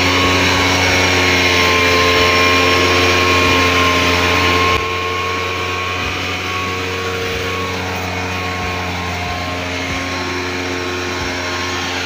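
Backpack motorized mist blower's small two-stroke engine running steadily at high speed while spraying, with a constant pitch; it drops a step quieter about five seconds in.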